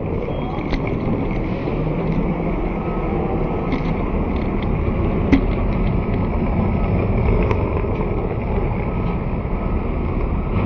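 Steady outdoor background rumble, like street traffic or wind on the microphone, with a few faint clicks scattered through it.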